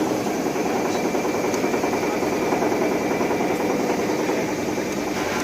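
CNC polygon milling machine running steadily.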